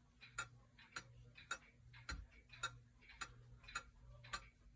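31-day windup regulator clock ticking faintly and evenly as its pendulum swings, just under two ticks a second.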